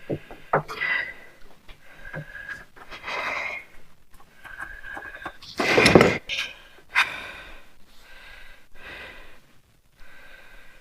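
A man breathing hard and wheezing while he works on the motorcycle, with a loud huff about six seconds in, and a few small clicks of tools and parts being handled.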